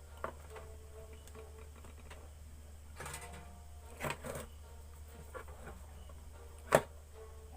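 A few light clicks and taps from small tools and phone parts handled on a workbench, the sharpest single click near the end, over a steady low electrical hum.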